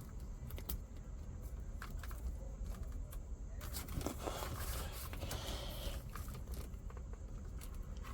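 Small clicks and rustling of cables and a plastic connector being handled while an NMEA 2000 drop cable is worked into its backbone T, with a longer scraping rustle near the middle, over a steady low hum.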